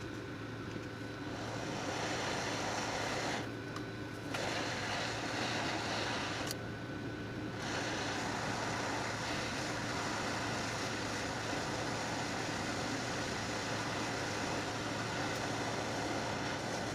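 Hot-air rework station blowing a steady stream of air over a phone circuit board, its hiss dipping briefly twice, near the start and again a few seconds later.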